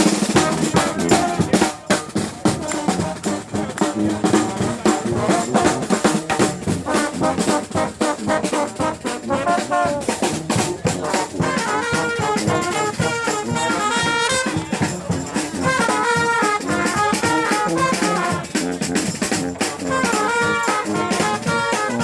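A brass band playing live, horns over a driving drum beat, the horn lines growing busier with quick runs in the second half.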